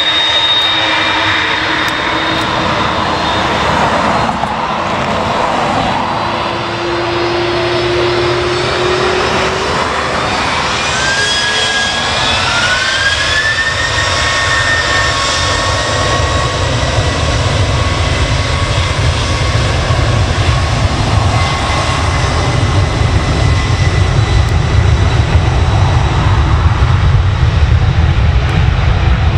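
Jet airliner engines running: a whine rises in pitch about a third of the way in and then holds steady, while a deep rumble builds and grows louder toward the end.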